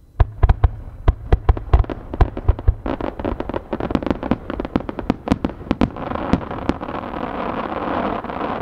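Aerial firework shells bursting in rapid succession: a quick string of sharp bangs for about six seconds, then a dense crackling that grows louder toward the end.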